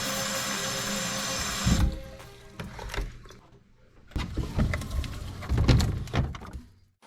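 Water running from a tap into a bottle for about two seconds, then shut off, followed by a run of knocks and clunks of plastic bottles being handled.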